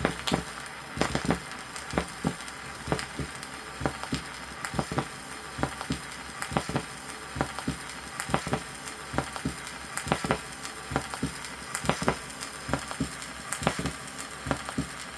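Normal human heart sounds heard at Botkin's point on the chest: paired lub-dub first and second tones repeating about once a second. A steady hiss and crackle of old vinyl surface noise runs underneath.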